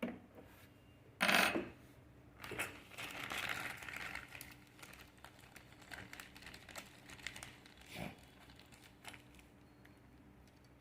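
Small hard sewing-machine accessories, such as presser feet, being handled: a short clatter about a second in, then faint clicks, clinks and rustling.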